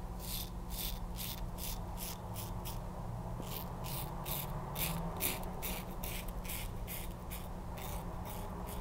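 Open-comb SOLUNA safety razor scraping through lathered stubble on the cheek in short, quick strokes, about three a second, with a brief pause about three seconds in.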